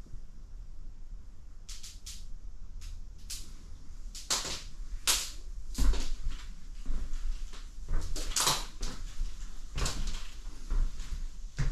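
Footsteps and light knocks on a laminate floor: scattered clicks and short scuffs at irregular intervals, a little louder from about four seconds in.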